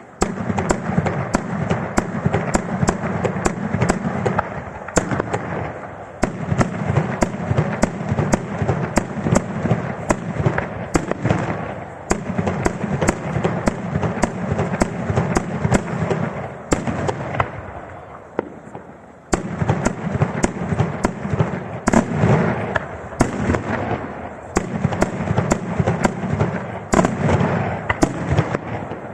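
Daytime aerial fireworks going off in dense, rapid volleys of bangs and crackling. The barrage comes in waves, with short dips about 5 and 12 seconds in and a longer lull around 17 to 19 seconds before it picks up again.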